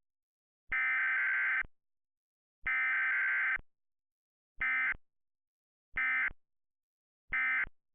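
Emergency Alert System SAME digital data bursts, the harsh buzzing screech of the encoded alert tones. Two bursts of about a second each are followed by three short ones about a second and a third apart; the short ones match the end-of-message code that closes an alert.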